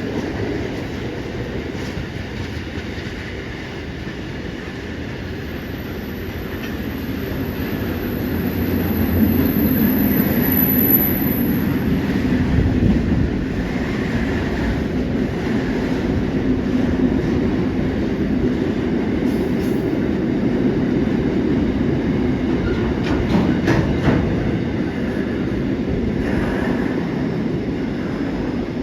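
A train passing at speed: a steady rumble of wheels on rails that grows louder about eight seconds in and holds, with a few clicks of wheels over the rail joints.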